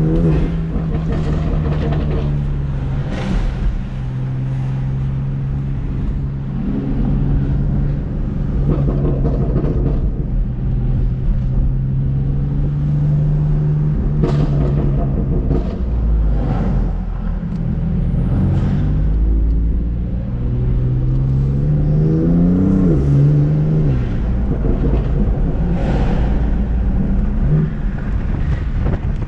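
BMW F80 M3 Competition's twin-turbo inline-six, Bootmod3 Stage 1 tune, running under way with a steady exhaust note, its pitch rising in a short acceleration about three quarters of the way through and then dropping back.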